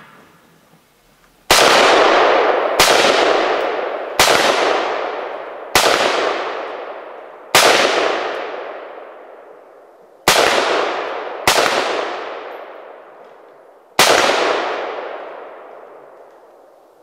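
Eight aimed shots from an AR-15 rifle, fired singly at irregular spacing over about twelve seconds, each shot trailing off in a long echo.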